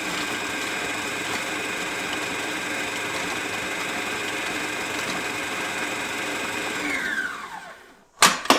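Electric kitchen mixer motor running at a steady speed with a high whine, giving the dry banana bread ingredients a quick mix, then winding down and stopping about seven seconds in. A sharp clink of a bowl or utensil comes right at the end.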